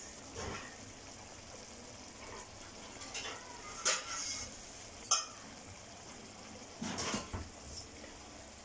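Curry gravy simmering in a kadai, with a handful of short clinks and knocks of kitchen utensils against the pan, the loudest near the middle.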